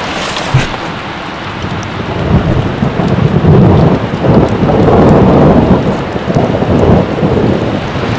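Hail falling hard on the forest floor and brush, a dense steady hiss, with a heavy low rumble building about two seconds in and surging through the middle.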